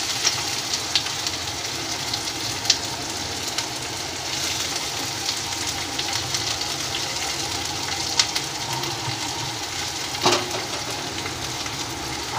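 Cumin seeds frying in hot mustard oil in a kadhai: a steady sizzle with sharp pops now and then.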